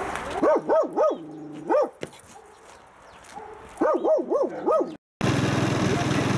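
A dog barking in two runs of four quick, high yelps, each rising and falling in pitch, the runs about two seconds apart. About five seconds in, the sound cuts to a steady motor drone from a loud wheeled machine.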